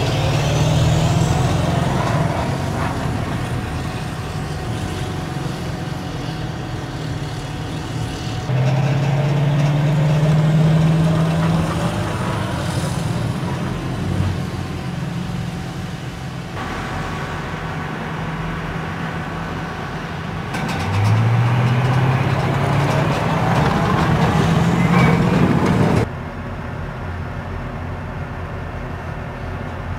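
Diesel engines of tracked amphibious assault vehicles (AAV7) running and revving as they move over sand, the pitch rising several times. The sound changes abruptly a few times as the footage cuts between vehicles.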